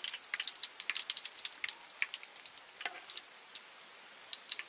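Fried tofu crackling in hot oil: fast, irregular small pops and sizzling that thin out toward the end.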